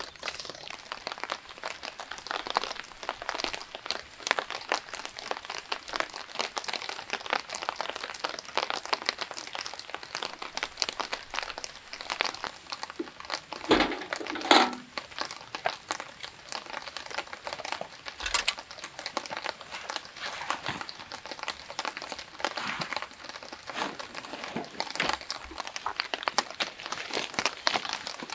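Crinkling and rustling of camping gear being handled: a backpack in a plastic-like rain cover. There is a heavier thump about halfway through as a hard case is set down on grass.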